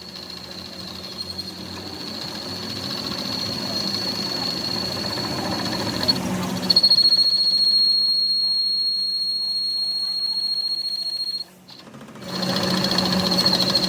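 A machine running with a steady high-pitched whine over a low hum. The sound changes abruptly about halfway through and drops out briefly near the end.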